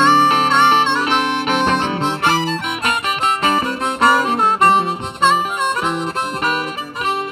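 Blues harmonica playing the instrumental intro of a blues song with bent notes, over guitar accompaniment.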